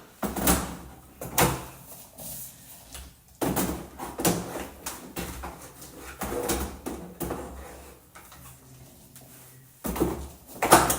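Plastic clunks and clicks of a Nuna infant car seat being handled and fitted onto the stroller frame, a string of separate knocks a second or two apart.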